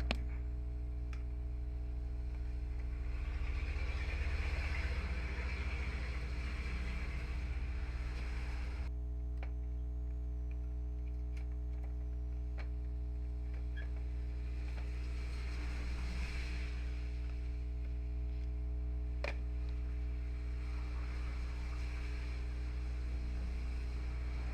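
Steady electrical mains hum, with a few faint clicks and soft rustling from parts being handled.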